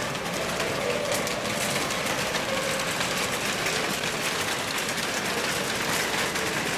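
Loaded wire shopping carts rolling over brick paving: a steady rattle of wheels and wire baskets.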